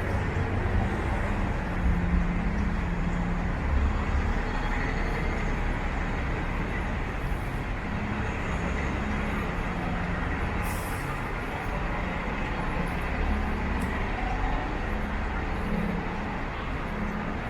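Downtown street traffic: a steady mix of vehicle engines and tyres, with a low engine hum that comes and goes and a short hiss about eleven seconds in.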